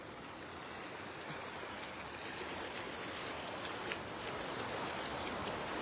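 Shallow river water rushing over rocks: a steady, even rush that slowly grows a little louder.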